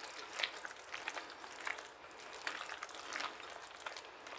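Faint, irregular squishes and light scrapes of a spoon folding a thick sausage and cream cheese filling together in a bowl.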